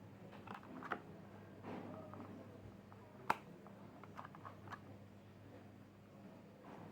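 Small plastic toy kitchen pieces being handled, giving scattered light clicks and taps, with one sharper click about three seconds in, over a faint steady hum.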